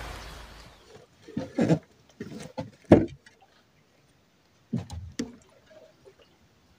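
A steady rushing noise fades out over the first second, then a handful of dull knocks and thumps in a small boat: a cluster of four or five, then two more about two seconds later.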